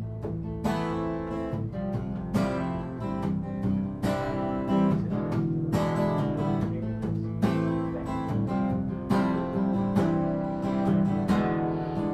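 Acoustic guitar strummed in a steady rhythm of repeated chords, the instrumental intro to a song.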